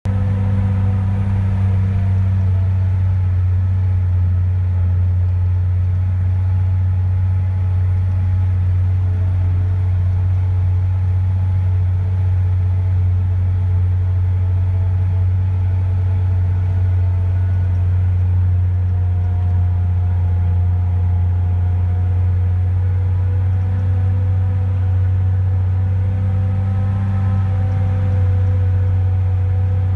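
Truck engine and driveline drone heard from inside the cab while driving at a steady speed: a loud, steady low rumble with fainter higher tones drifting slowly up and down.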